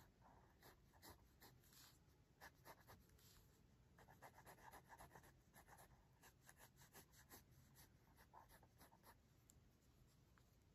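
Pentel EnerGize mechanical pencil scratching faintly on paper in many short, quick sketching strokes, busiest in the middle.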